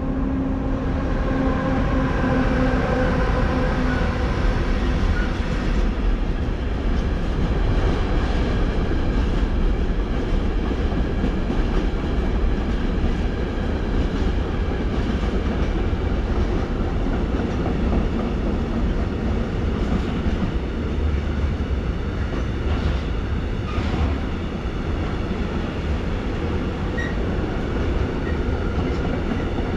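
A train running on the rails through the station, with a steady rolling rumble of wheels on track and faint clicks. A whine from the train's drive is heard in the first five seconds and then fades under the rolling noise.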